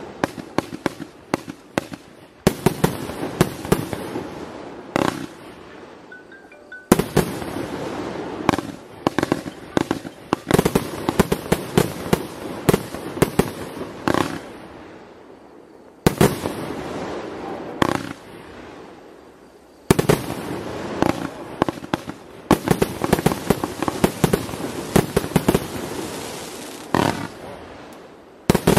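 Fireworks display: aerial shells bursting in rapid volleys of sharp bangs and crackle. Each volley starts suddenly and thins out before the next, with fresh barrages about 2 s, 7 s, 16 s, 20 s and near the end.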